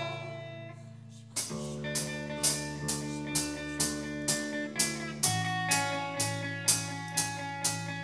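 Live rock band playing an instrumental passage: electric guitar and bass guitar chords over a drum kit. The band drops back briefly at the start, then comes in fully about a second and a half in, with the drums keeping a steady beat about twice a second.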